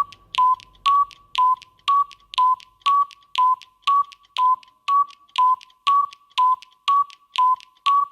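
Electronic clock tick-tock sound effect: short, clicky tones about two a second, alternating between a slightly higher and a slightly lower pitch, for a countdown timer.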